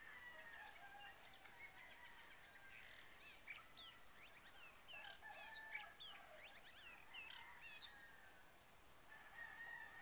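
Faint birdsong: small birds giving quick rising and falling chirps, over a rooster's long drawn-out crows that come and go.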